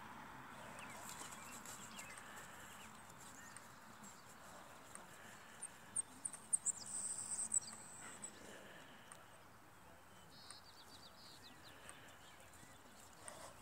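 Quiet outdoor ambience with a short run of high chirps about halfway through.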